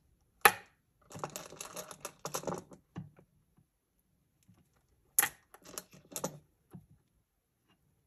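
Orange agate beads clicking against one another and their ceramic dish as they are picked out and strung on beading wire. There is a sharp click about half a second in and another just after five seconds, with runs of small clicks between them.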